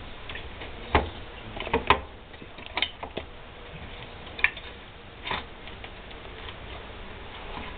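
Irregular metallic clicks and light knocks, about half a dozen, from hand and tool work on a Piaggio Ciao moped's engine and belt-side fittings. The sharpest come about one and two seconds in.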